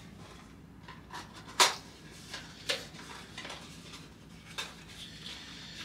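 Small accessory boxes being opened and their contents handled: a few sharp clicks and taps, the loudest about a second and a half in, with light rustling between them.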